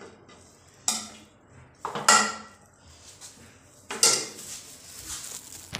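A steel serving spoon knocks and scrapes against a steel cooking pot and a ceramic platter as rice is dished out. There are a few separate clatters, the loudest about two seconds in.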